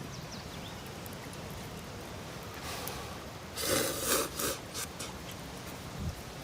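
Cup ramen noodles slurped up, a couple of loud slurps around the middle over a steady hiss.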